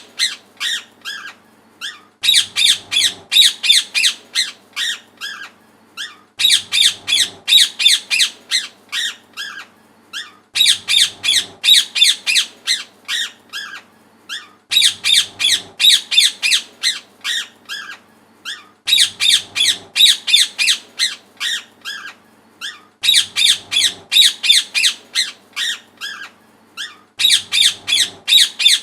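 Parrot squawking in rapid bouts of sharp, high calls, about ten calls to a bout, with a short pause between bouts; the same bout repeats about every four seconds.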